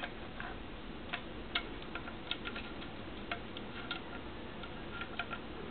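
Faint, irregular metal clicks and taps from an 1874 Sharps falling-block action as its breechblock and extractor are worked and lined up in the receiver.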